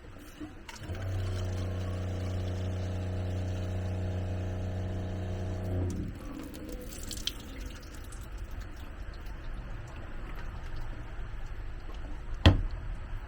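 The water pump feeding a newly plumbed sink runs with a steady hum for about five seconds, then stops; it is working properly. Water then trickles in the sink, and a sharp knock sounds near the end.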